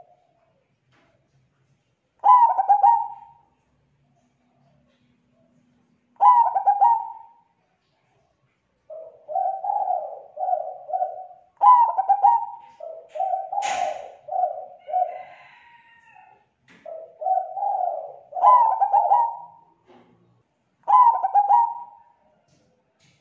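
Zebra dove (perkutut) cooing: loud, clear staccato phrases of quick coos every few seconds, with softer rolling runs of coos between them. This is the cooing song that is used as a lure to call other zebra doves. A single sharp click sounds about halfway through.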